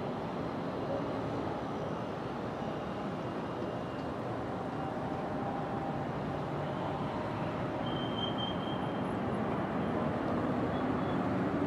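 Steady vehicle and street noise: a continuous hum of engines and traffic, with a brief faint high tone about eight seconds in.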